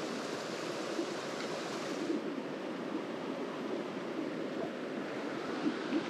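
Mountain stream running: a steady wash of flowing water.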